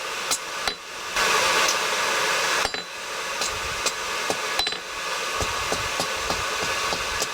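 Hammer striking hot steel on an anvil, forging the end of a J hook. The blows are spaced out at first, with a brief rushing noise about a second in. After about five seconds they become lighter, quicker taps, roughly three or four a second.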